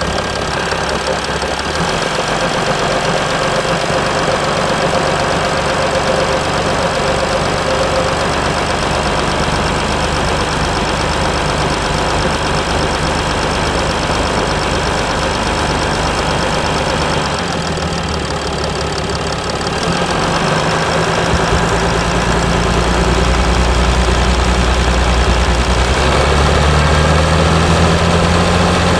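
Mercedes E320 CDI's V6 diesel running at a rough idle shortly after a cold start, through an exhaust whose particulate filter and catalytic converter have been emptied. The low engine note shifts about two-thirds of the way in and grows louder and a little higher near the end.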